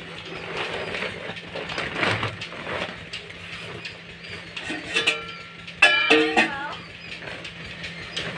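Plastic sack rustling and crinkling as it is handled over an open plastic drum, with a short pitched call, the loudest sound, about six seconds in.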